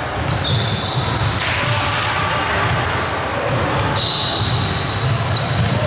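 Basketball game in a gym: a ball bouncing on the floor, with short high sneaker squeaks and players' voices in the background.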